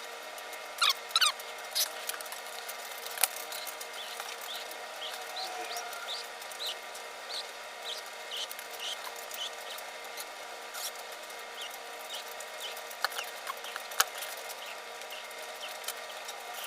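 Scissors cutting, a regular run of short squeaky chirps about one to two a second with a few sharper clicks.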